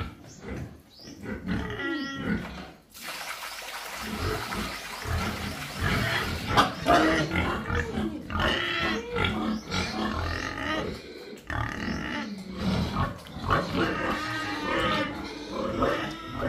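Several pigs grunting and squealing at feeding time, many short calls overlapping as they crowd the trough.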